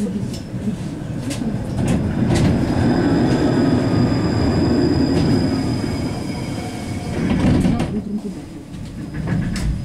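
71-931M «Vityaz-Moskva» low-floor tram running on the rails, heard from inside the car: a heavy low rumble with a few sharp clicks. A thin, steady high whine sounds for several seconds in the middle.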